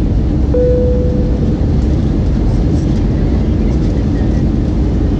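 Steady cabin noise of an Airbus A321 on descent, heard inside the cabin: a low engine and airflow rush. A single short tone sounds about half a second in and fades within a second.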